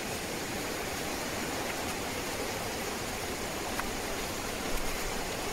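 River water flowing, a steady rushing sound.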